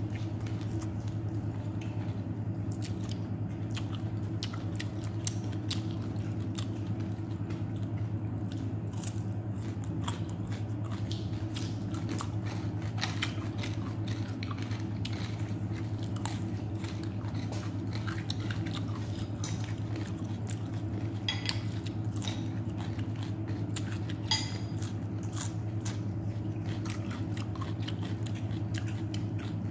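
A person chewing and crunching crisp food, papaya salad with fried pork cracklings, close to the microphone, with many small sharp crackles. A steady low hum runs underneath.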